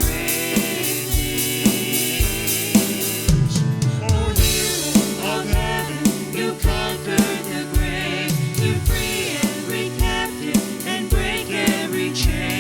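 Live worship band playing a gospel-style song, with a drum kit keeping a steady beat of about two hits a second over bass and keys, and some singing.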